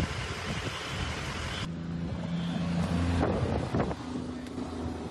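Wind buffeting the microphone with a loud rushing hiss, which cuts off abruptly about a second and a half in. After that comes a steady low engine hum, with a few brief irregular sounds in the middle.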